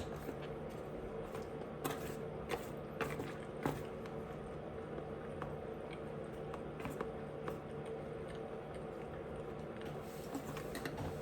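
A person eating close to the microphone: scattered wet mouth clicks and smacks of chewing, most of them in the first four seconds, over a steady background hum.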